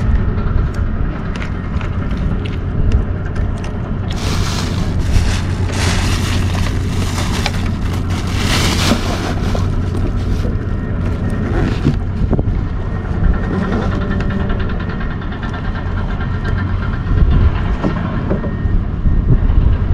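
Wind buffeting a small action-camera microphone: a steady low rumble, with louder hissing gusts from about 4 to 10 seconds in.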